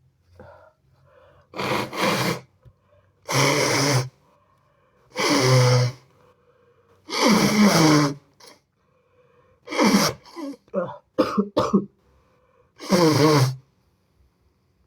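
A man blowing his nose hard into a tissue: a string of loud blows, each under a second and a second or two apart, with a quick run of shorter blows near the end.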